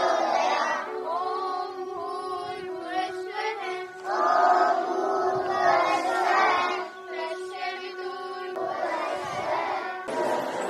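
A large group of children singing a prayer in unison, with long held notes and phrases rising and falling. It breaks off about ten seconds in, giving way to a noisier sound.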